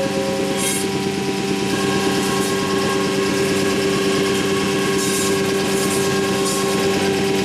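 Anderson Stratos Pro CNC router running with a steady machine whine of several tones. A few short hisses come about a second in and again around five to six and a half seconds in.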